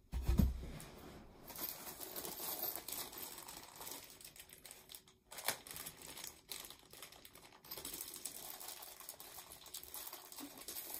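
A flat-pack furniture panel thumps down, then a small plastic bag of assembly hardware crinkles and rustles steadily as it is handled and opened, with a few sharp clicks.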